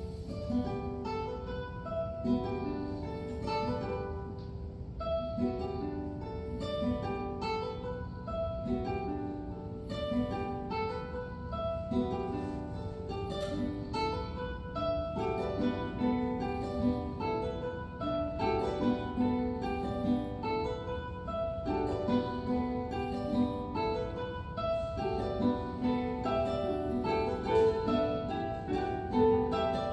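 Guitar quartet of classical guitars playing in ensemble: many short plucked notes in overlapping, repeating figures, growing a little louder in the second half, over a faint steady low hum.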